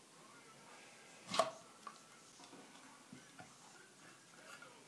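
Plastic Cherry Chomper cherry pitter clicking as it is handled: one sharper click about a second and a half in, then a few faint ticks.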